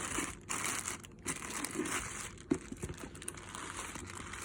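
Plastic wrapping crinkling and rustling as it is pulled off and handled, in uneven bursts with a couple of brief pauses and a few sharp clicks.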